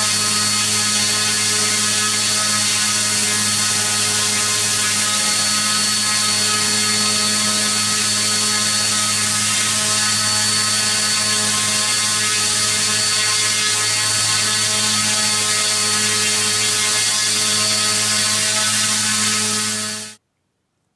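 A2212/13T 1000KV brushless outrunner motor spinning a 10x4.5 inch two-blade propeller at a steady 6360 RPM, giving 620 g of thrust: a steady hum with a thin high whine over the rush of air from the propeller. It stops about twenty seconds in.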